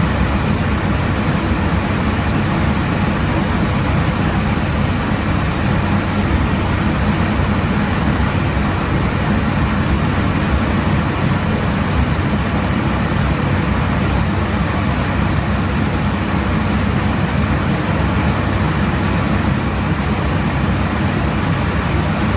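Steady roar inside an aircraft in flight: engine and airflow noise with a low, even hum underneath, unchanging throughout.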